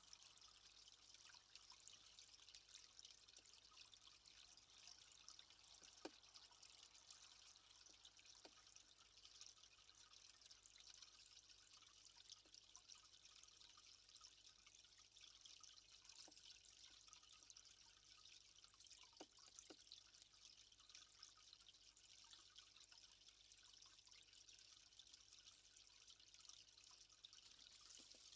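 Faint steady trickle of running water, with a few soft knocks.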